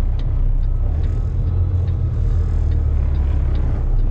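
Kenworth dump truck's diesel engine running steady under way, heard from inside the cab as a low drone.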